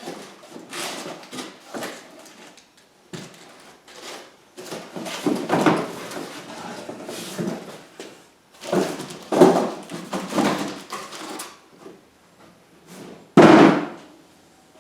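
Packaging around a portable bandsaw being handled and opened: irregular bursts of scraping and shuffling, with one sharp thump about 13 seconds in.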